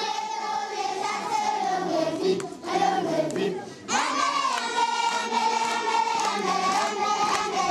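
A large group of schoolchildren singing together as a choir. There is a brief pause about two and a half seconds in, then the singing comes back strongly at about four seconds.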